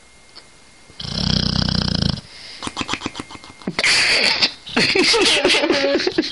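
Bulldog snoring: quiet at first, then one long, loud rattling snore about a second in. It is followed by irregular, louder noisy breaths with a wavering pitch through the second half.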